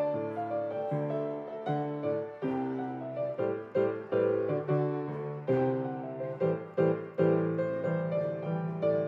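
Piano playing a slow flow of struck notes and chords, each ringing and fading before the next.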